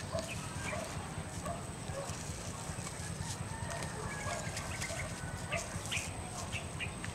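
Light rustling and scattered small clicks of plastic tying string and tomato leaves being handled as the string is knotted onto a trellis wire, over a faint steady high tone.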